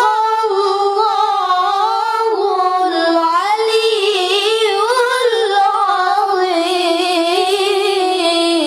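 A high young voice reciting the Quran in a melodic, tajwid style, drawing out the closing formula "Sadaqallahul 'azim" in one long ornamented phrase. The phrase winds up and down and settles on a long held note near the end.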